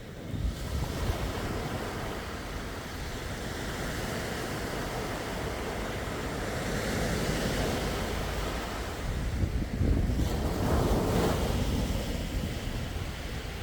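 Sea waves washing onto the shore, the surf swelling louder about two-thirds of the way through, with wind buffeting the microphone.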